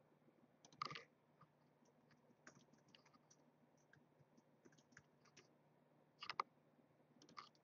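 Faint, scattered clicking of a computer keyboard and mouse as spreadsheet entries are made, with two louder clicks, about a second in and a little past six seconds.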